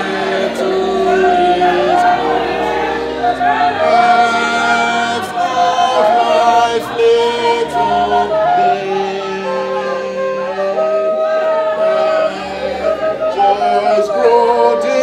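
Music with singing: voices holding notes and stepping from pitch to pitch over a low bass line, with a light regular tick of percussion.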